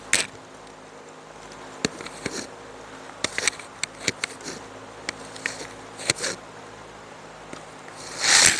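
Irregular light clicks and taps from hand caning a chair seat: cane strands and wooden pegs handled against the chair's wooden frame and its holes. Near the end there is a short, louder rustling scrape.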